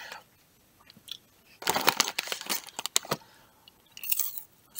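Popcorn being chewed with loud crunches close to the microphone: a dense run of crunching about two seconds in, lasting about a second and a half, then a shorter burst near the end.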